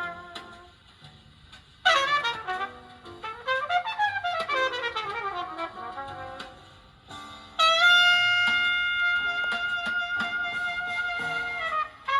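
Jazz music led by a trumpet: a quick falling run of notes, then one long held high note near the end.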